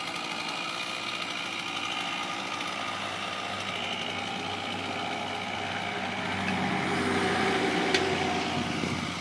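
An engine running steadily, growing louder about seven seconds in, with one sharp click about eight seconds in.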